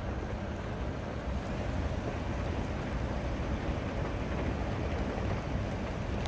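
Steady rumble and hiss of wind and rain on the microphone, with no distinct event standing out.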